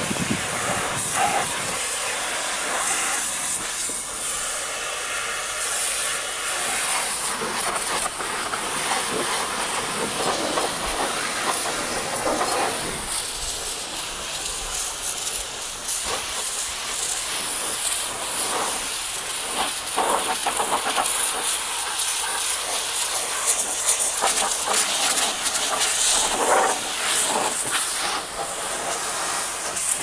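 High-pressure water jet from an HTP-pump car-washing machine blasting a vehicle's tyre and wheel arch. The hiss of the spray swells and dips as the jet moves over the rubber and metal.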